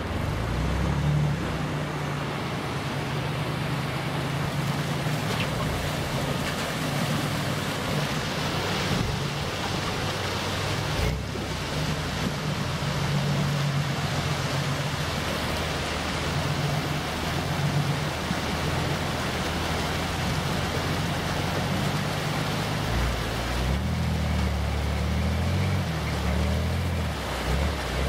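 Lifted off-road pickup's engine running at low revs as it crawls through a rushing mountain creek, its pitch rising and falling with the throttle, over the steady rush of the creek water.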